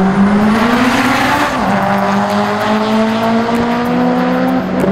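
Drag-strip cars accelerating hard away from the start line. The engine pitch climbs, drops as it shifts up about a second and a half in, climbs again, and drops at another upshift near the end.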